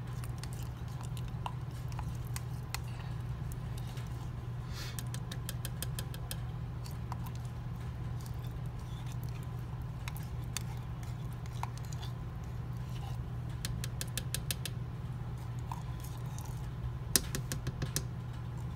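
A small metal fork scraping and clinking against a tin can as tomato paste is scooped out, in scattered runs of quick ticks, with a sharper clink near the end. A steady low hum runs underneath.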